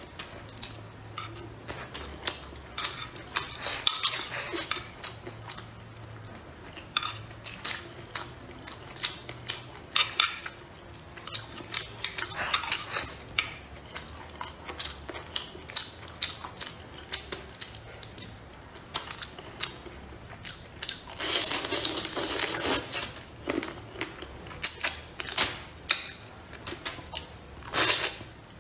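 Chopsticks clicking and scraping against a plate and through the bones of a braised fish, a quick irregular run of small clicks, with a louder noisy stretch of about two seconds roughly three quarters of the way in.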